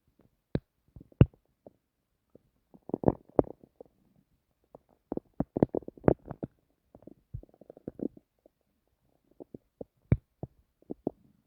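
Human stomach gurgling and rumbling: irregular bubbling and sharp little pops, busiest in two clusters in the first half and the middle, with scattered single pops near the end.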